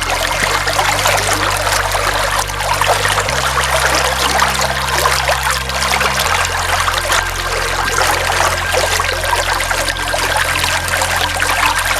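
Running water pouring and splashing steadily, with a low droning chord underneath that shifts pitch three times over the first six seconds.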